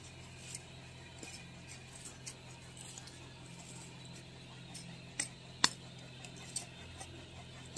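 Metal blade of a hand hoe clinking against dry, stony soil: scattered light clicks, with two sharper ones a little past five seconds in.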